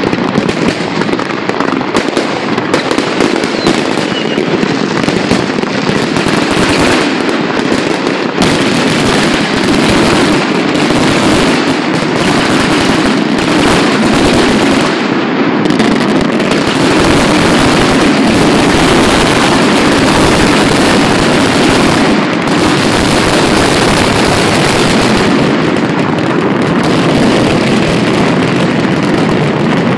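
A large fireworks display in full barrage: many aerial shells and crackling effects bursting in rapid, overlapping succession, merging into a near-continuous roar of bangs and crackle.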